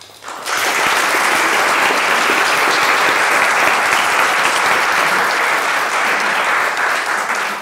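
Audience applauding: dense, steady clapping that starts about half a second in and tails off near the end.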